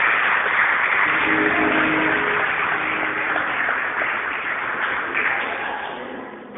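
Audience applauding, dying away over the last second or two, with faint voices or music underneath.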